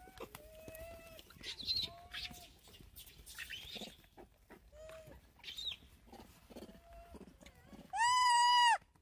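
Macaques calling: several short, high-pitched coos, then near the end one loud, shrill, drawn-out cry lasting under a second.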